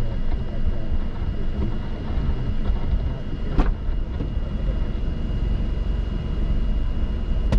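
Vehicle and wind noise, a low steady rumble, with one sharp click about three and a half seconds in.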